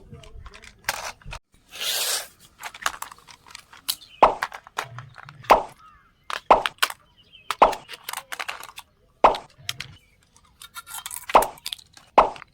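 Packaging and plastic parts of a toy RC car being handled during unboxing: a series of short clicks, knocks and pops at irregular spacing, with a brief rustle about two seconds in.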